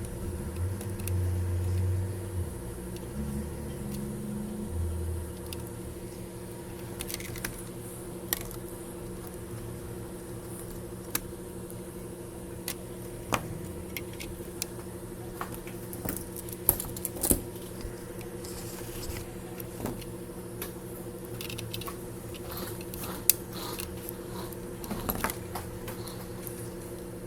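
Small hand tools clicking and tapping now and then on a repair bench during board repair work, over a steady electrical hum. A low droning sound is heard for the first five seconds or so.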